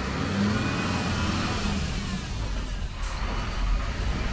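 Heavy diesel truck running, a steady low engine rumble with road and wind noise.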